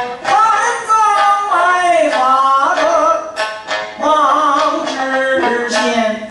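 A man singing Xihe dagu (Hebei drum-song) in long, gliding held notes, over sanxian accompaniment, with sharp clacks of the small metal plates in his hand now and then.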